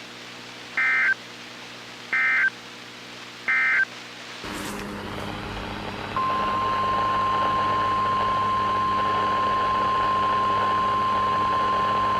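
Emergency Alert System end-of-message data bursts: three short, identical, harsh digital bursts about 1.4 s apart, closing the previous warning. About four seconds in there is a click and a hissing, humming radio background comes up, and about two seconds later a single steady high alert tone starts and holds: the weather radio warning alarm tone that comes before the next warning.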